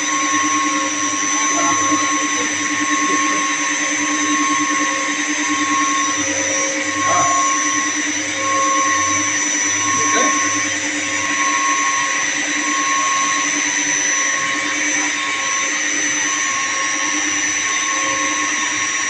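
Steady drone of running pump and motor machinery, with a constant hum and a high whine over a noisy hiss.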